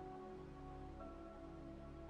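Quiet background music: soft, sustained chords that change about a second in.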